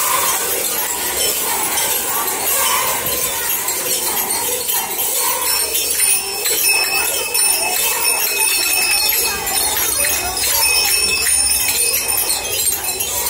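Many lezims, wooden dance sticks fitted with small jingling metal discs, shaken and clashed together by a group of dancers in a continuous metallic jingle.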